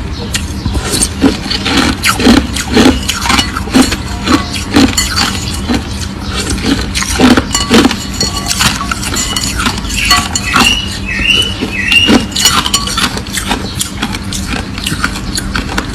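Crushed ice being crunched between the teeth close to the microphone, in rapid irregular crunches, over a steady low hum. Three short high squeaks come about two-thirds of the way in.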